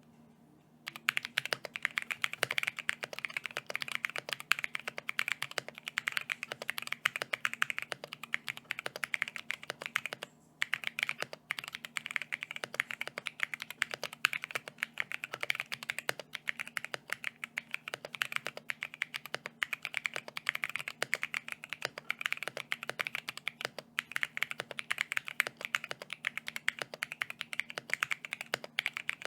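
Continuous typing on a mechanical keyboard fitted with stock AEBoards Naevy tactile switches (polycarbonate top housing, nylon bottom, MPE stem, 58 g springs, lightly factory lubed), with a brief pause about ten seconds in. A shallow sound without much depth.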